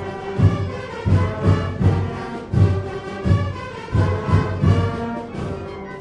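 Peruvian marching band playing: brass holding and changing sustained notes over heavy drum beats about twice a second.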